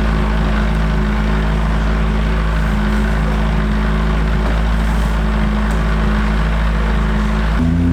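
Praga R1T race car engine running at a steady, nearly unchanging pitch, with a shift in pitch near the end.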